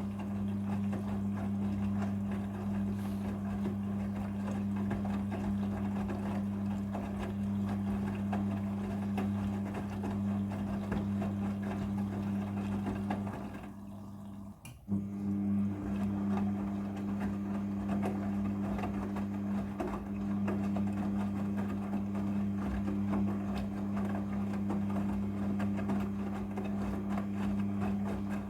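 Midea front-loading washing machine running its prewash cycle: a steady machine hum that stops for about a second midway and starts again with a click.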